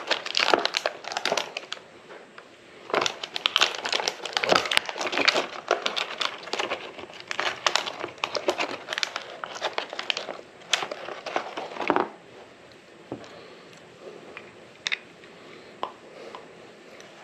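Plastic-and-paper packaging crinkling and crackling as new suspension bushings are picked out of it, dense for about twelve seconds. It then goes quieter, with a few light clicks.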